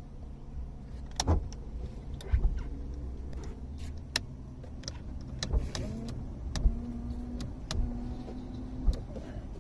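2005 Chrysler PT Cruiser's rear wiper motor running, the wiper working back and forth, with a low motor hum and a sharp click roughly every second.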